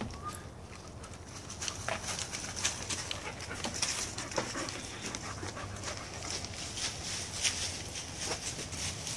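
Dogs panting, a run of short breathy sounds that starts about two seconds in and keeps going, with some scuffling as they move about.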